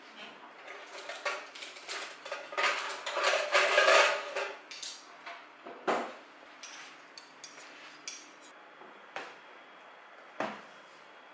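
Dishes and cutlery clinking and clattering for a few seconds, followed by a few separate knocks.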